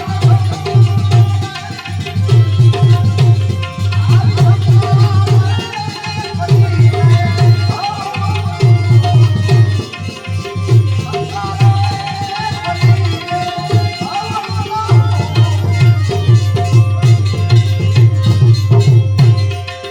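Gujarati devotional bhajan music: hand drums play a fast, steady beat under a wavering melody line. The drumming drops off right at the end.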